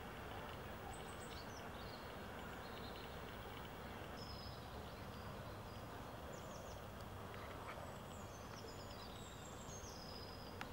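Faint outdoor ambience: scattered high, thin chirps of small songbirds over a steady low rumble.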